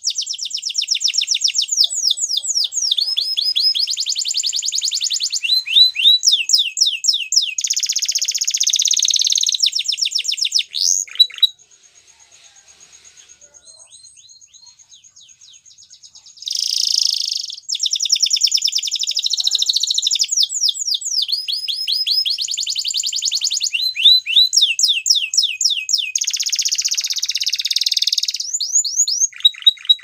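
Waterslager canary singing: long unbroken runs of rapid trills and rolling, buzzy phrases. About halfway through the song drops to a few soft notes for several seconds, then starts up again at full volume.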